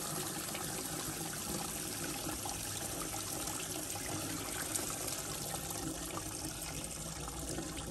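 Trapped rainwater pouring steadily out from under a BMW 4 Series F33 convertible and splashing onto paving stones. This is water that had built up in the car's body behind a drain blocked with gunk, the cause of its sloshing sound.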